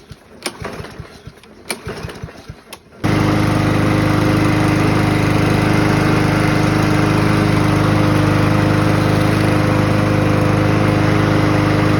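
A few light clicks and knocks, then from about three seconds in a four-stroke push mower engine running steadily on gasoline still mixed with leftover diesel.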